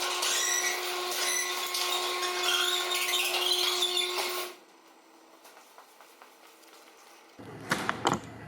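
Garage door closing under an electric opener: a steady motor whine over the rattle of the door panels rolling down, cutting off abruptly about four and a half seconds in as the door comes to rest. A few sharp knocks near the end.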